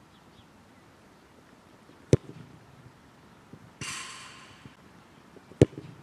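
A football struck hard with a firm-ground boot (Umbro Tocco Pro) for a knuckleball free kick: a single sharp thud about five and a half seconds in. A similar sharp thud comes about two seconds in, and a short rush of noise about four seconds in.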